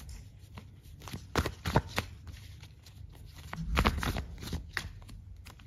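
A tarot deck being shuffled by hand: cards clicking and slapping against each other in a string of sharp, irregular clicks, thickest a little past the middle.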